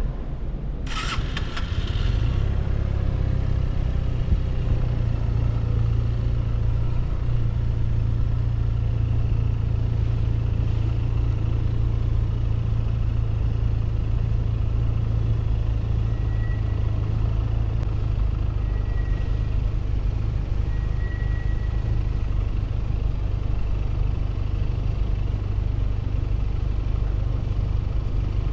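Benelli 302S motorcycle's parallel-twin engine starting about a second in, then idling steadily through its exhaust.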